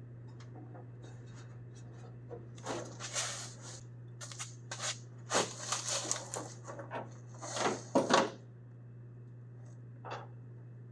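Hand tools and metal parts scraping, rattling and knocking in an irregular series as a stuck part is worked at, loudest about eight seconds in, over a steady low hum.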